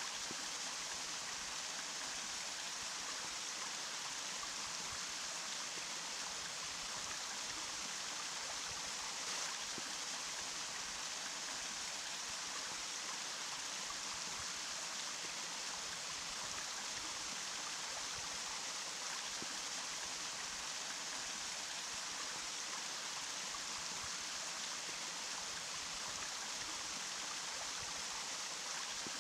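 Running water, a stream or small cascade, rushing steadily with an even, bright hiss and little deep rumble.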